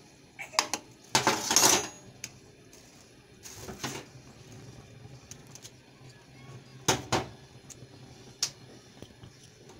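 Metal spoon stirring and scraping dry whole spices around a plate, loudest a little over a second in, with a shorter scrape after it. A few sharp clicks and knocks follow later as things are set down on the counter.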